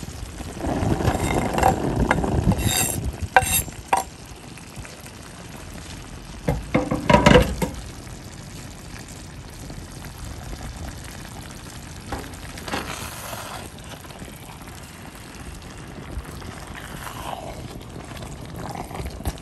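Chopped spring onions scraped off a wooden chopping board with a knife into an enamelled cast-iron pot of groundnut stew, with a few sharp metallic clinks in the first four seconds and a cluster of knocks around seven seconds. After that the stew simmers with a soft, steady sizzle, and a spoon stirs it near the end.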